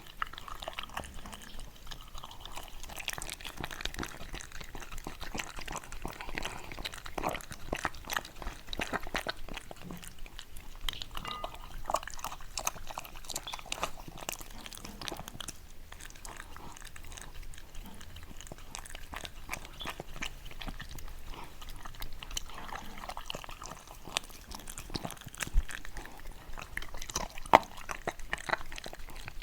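Shiba Inu chewing and crunching food close to the microphone, with many small crunches through the whole stretch and a sharper crunch near the end.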